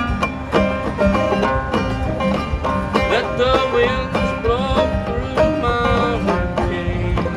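Clawhammer banjo playing an old-time tune in a steady rhythm, with a few notes sliding in pitch around the middle.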